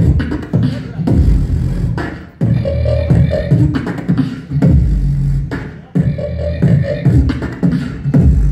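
Live beatboxing through a handheld microphone: deep bass-kick sounds and sharp snare-like clicks in a steady beat.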